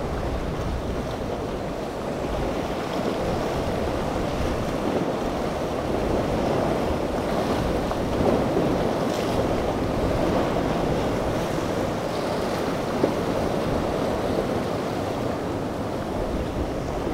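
Wind buffeting the microphone over waves and surf, with a motorboat running through the chop beneath it.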